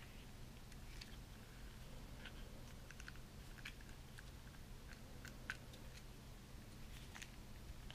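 Faint, scattered clicks and ticks of a plastic action figure's joints and armour pieces being moved by hand, over a low steady hum.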